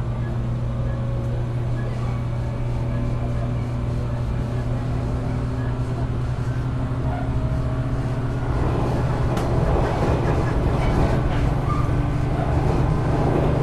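Running sound inside a JR West 475 series express-type EMU motor car: the MT54 traction motors hum steadily under the noise of the wheels on the rails. About two-thirds of the way through it grows louder, with more clatter.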